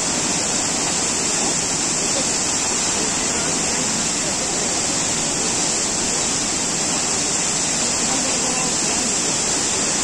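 Waterfall pouring, a steady unbroken rush of falling water.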